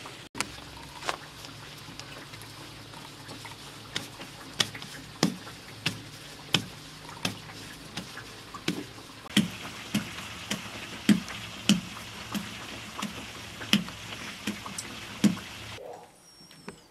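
Bread dough kneaded and rounded into balls by hand on a floured cloth: a series of soft slaps, roughly one or two a second, over a steady hiss. Near the end the slapping stops and it goes much quieter.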